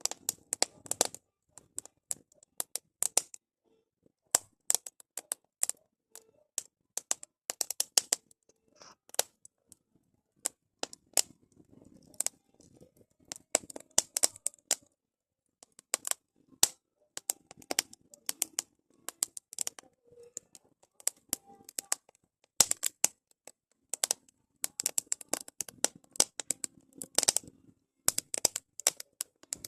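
Wood fire crackling: firewood burning with sharp, irregular snaps and pops, often several in quick clusters, with short pauses between.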